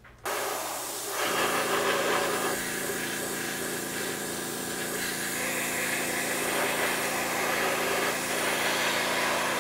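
Airbrush hissing steadily as it sprays an acrylic clear coat. About a second in, the air compressor feeding it starts up and runs with a steady hum under the hiss.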